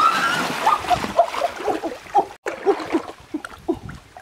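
River water splashing heavily as a person lunges and thrashes through a shallow stream, loudest in the first second, then settling into lighter sloshing.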